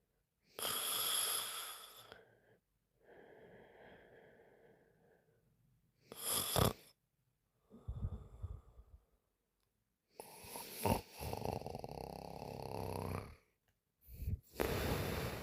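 A woman snoring in deep sleep, breath after breath, with louder snores alternating with quieter ones and brief pauses between them. There is a short, loud snore about six seconds in and a long one near the end.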